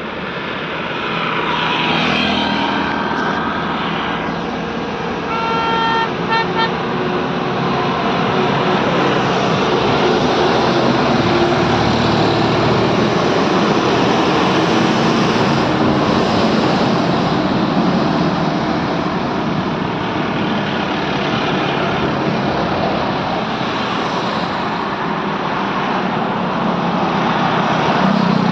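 Heavy road traffic with trucks running steadily. A vehicle horn sounds a quick series of short toots about five to six seconds in.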